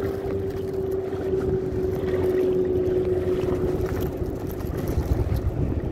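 A steady, even hum that slowly sinks a little in pitch and fades out near the end, over a low rumble of wind and water.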